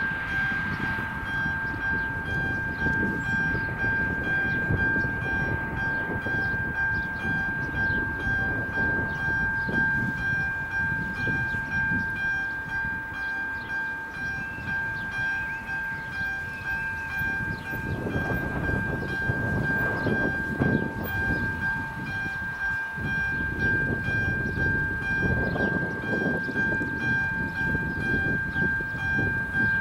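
Railway level crossing's electronic warning bell ringing steadily in a high tone: the crossing is active, warning of an approaching train.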